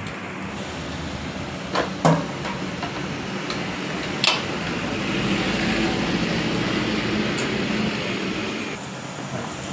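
A steady mechanical hum with a few short metallic clicks, about two seconds in and again a little after four seconds.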